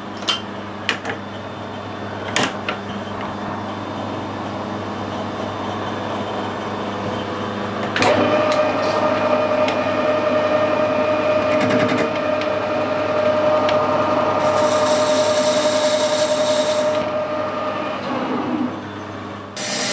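Metal lathe with a few clicks as it is set, then about 8 s in the spindle runs up and its headstock gearing gives a loud steady whine. A higher hiss joins for a few seconds near the middle, and the sound eases off near the end.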